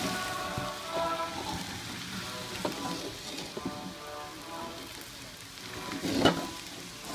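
A thin sheet of beaten egg sizzling in a hot wok, a steady frying hiss, with a sharp knock about six seconds in. Light background music runs underneath.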